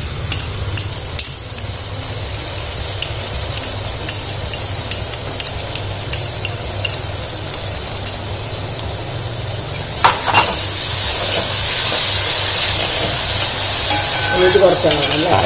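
A metal spoon clinks again and again against a small bowl and the pot as ginger-garlic paste is scraped into frying onions and tomatoes. About ten seconds in a louder clank comes from the metal ladle on the pot. The frying then sizzles louder as the paste is stirred through the hot oil.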